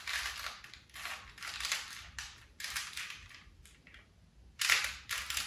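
Rubik's Cube being twisted, its plastic layers clicking and rasping in a series of short turns about once a second, with a brief pause near the end.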